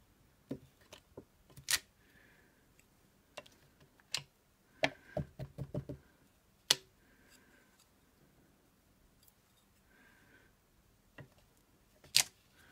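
Rubber stamps and craft supplies handled on a tabletop: scattered sharp clicks and knocks, with a quick run of taps around five seconds in and a loud click near the end.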